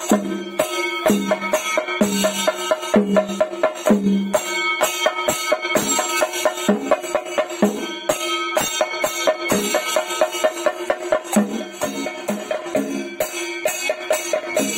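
Rhythmic percussion music with metallic jingling strokes about two a second over sustained tones.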